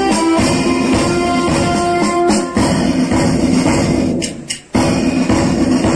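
Music with jingling percussion, dropping out for a moment about four seconds in and then coming back.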